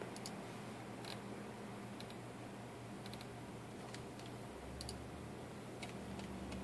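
A string of short computer mouse clicks, about eight or nine, spaced irregularly, over the steady low hum of a running PC.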